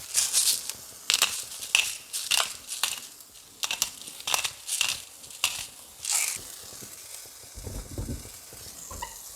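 Hand spice mill grinding salt and black pepper in a run of short, irregular crunching bursts for about six seconds, followed near the end by a low rumble.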